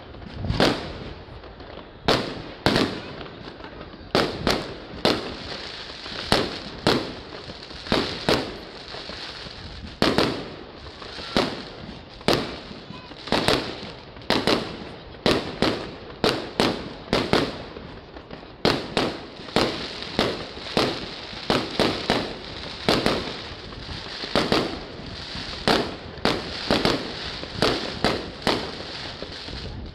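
Fireworks display: aerial shells bursting one after another in quick succession, roughly one or two sharp bangs a second.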